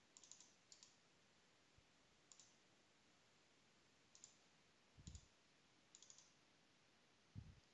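Near silence, with a handful of faint, sharp computer mouse clicks spread out over several seconds as menu items and search results are selected.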